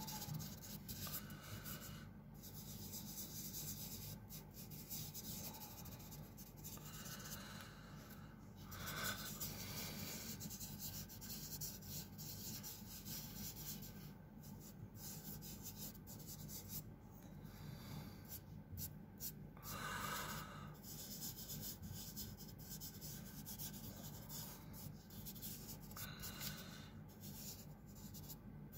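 Fingers and palm rubbing over paper, blending pastel colour: a faint, continuous scratchy rubbing broken by short pauses.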